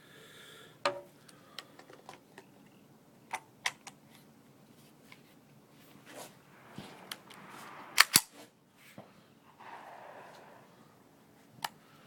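A series of sharp clicks and snaps in a small room, the two loudest close together about eight seconds in, with a soft hissing rustle for about a second afterwards.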